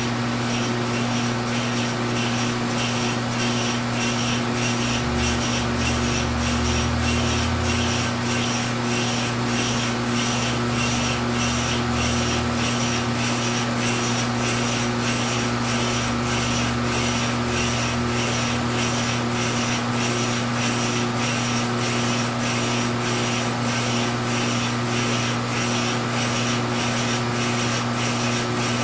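A tool bit cutting the end of a slowly turning fiberglass stern tube, giving a rhythmic rasping scrape about one and a half times a second. Under it run the steady hum of the machine drive and a shop vacuum.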